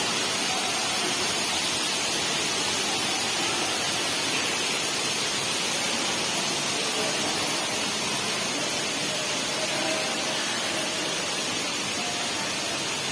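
Steady rushing of water from an artificial waterfall cascading over rocks, an even hiss that holds one level without a break.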